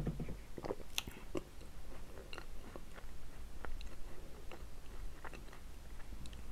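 A person chewing chocolate snacks close to the microphone, with irregular wet mouth clicks and smacks. The strongest ones come at the start and about a second in.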